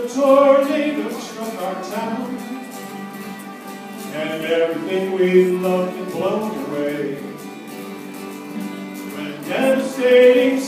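Acoustic folk band playing: several strummed acoustic guitars and a fiddle, with a voice singing the melody.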